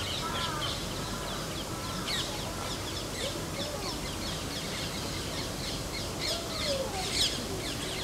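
Birds chirping and calling in quick succession over steady outdoor background noise, busiest near the end.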